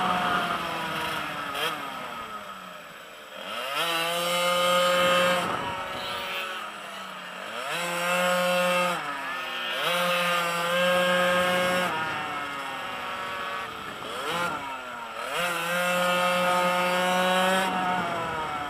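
Small two-stroke pocket bike (minimoto) engine under hard riding. The revs climb and hold high in four surges, falling away between them as the throttle is closed.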